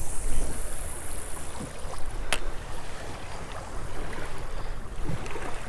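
Wind buffeting the microphone and choppy waves lapping against a small boat's hull, with one sharp click a little over two seconds in.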